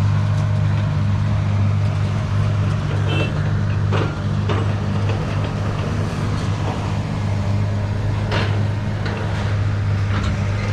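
A vehicle engine running steadily with a constant low drone, with a few short knocks about four seconds in and again near eight seconds.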